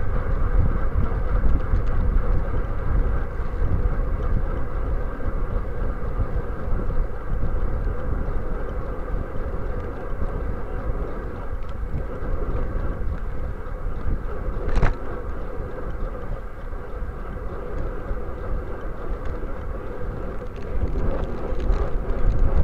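Steady rush of wind and tyre noise picked up by a bike-mounted camera riding on pavement, with one brief sharp click about fifteen seconds in. The rush grows louder again near the end.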